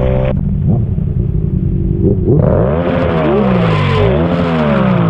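Motorcycle engines running at low speed. From about two seconds in, the revs rise and fall again and again, with more than one engine's pitch heard rising and falling at the same time.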